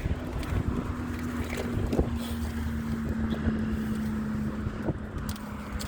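A motorboat's engine running at a steady hum over the water, with wind on the microphone and a few sharp clicks.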